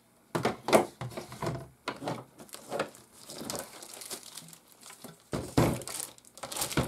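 Clear plastic wrapping crinkling in irregular bursts as a plastic-wrapped board is handled, with a few knocks against the table.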